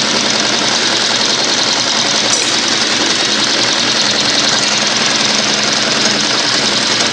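Dürkopp Adler 204-370 extra-heavy triple-feed lockstitch sewing machine running steadily at speed, stitching through thick layered polyester webbing. It stops suddenly at the end.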